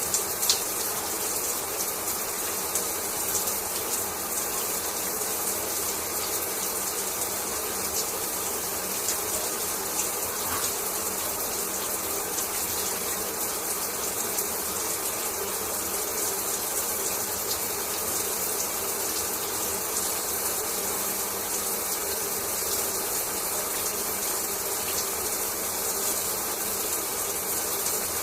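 Shower running steadily: a continuous spray of falling water, with a couple of brief sharper splashes near the start.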